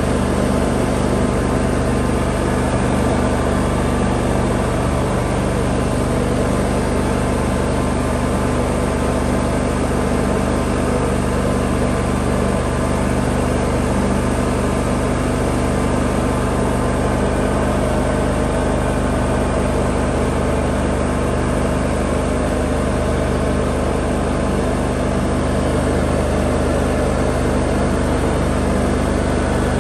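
John Deere X320 riding lawn tractor running steadily while mowing, its engine note unchanging, heard from the driver's seat.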